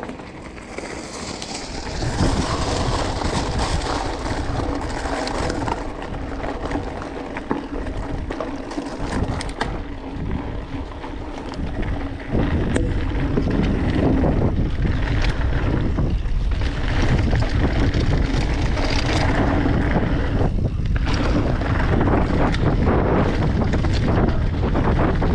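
Wind buffeting the microphone in a steady low rumble, which gets louder about halfway through.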